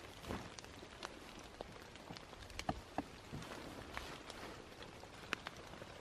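Rain falling in a forest: a steady soft hiss with many scattered drops tapping, a few of them sharper and louder.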